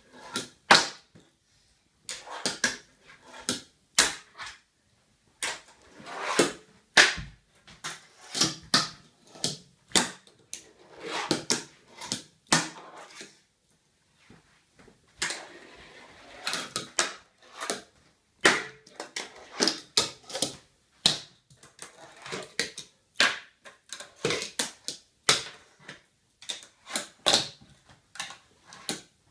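Fingerboard tricks on wooden ramps and a tabletop: many sharp, irregular clacks as the little board's tail pops and its wheels land, with short stretches of wheels rolling on the wood between them.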